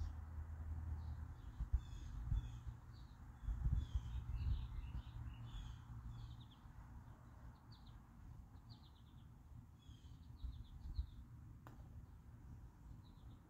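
Small birds chirping repeatedly over a low outdoor rumble, with one sharp click near the end: a putter striking a golf ball.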